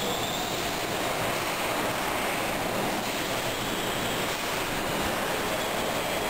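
Super typhoon winds and driving rain blowing hard: a steady, dense rush of noise that does not let up.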